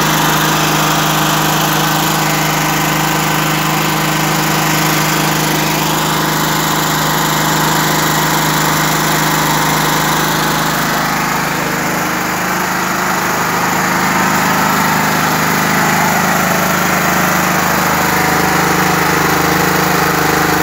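Grip 13 hp single-cylinder petrol generator engine running steadily with its fuel valve closed, using up the fuel left in the carburettor. Its note shifts slightly about twelve seconds in.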